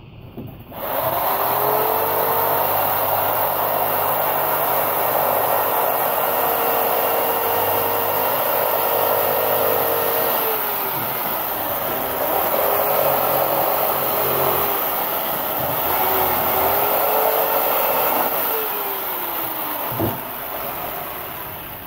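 Electric jigsaw cutting into blue foam board, its motor running steadily with the blade sawing the foam. It starts about a second in, its pitch dips briefly a few times, and it stops with a click near the end.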